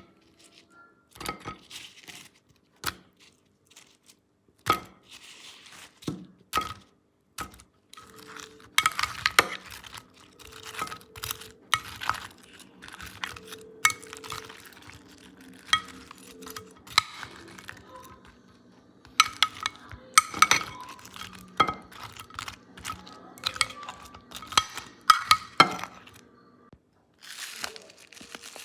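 Kitchen utensils and dishes clinking and knocking during food preparation: many short, separate sharp clicks at an irregular pace, busiest from about a third of the way in until near the end.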